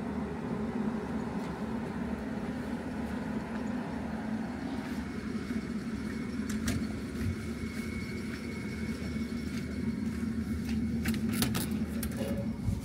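A steady low mechanical hum, with a few sharp clicks late on as a metal door is pulled open.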